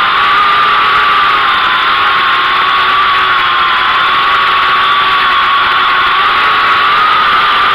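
Syma X8W quadcopter's motors and propellers whining steadily in flight, heard close up through the drone's onboard camera microphone; the pitch wavers slightly up and down as the motors adjust.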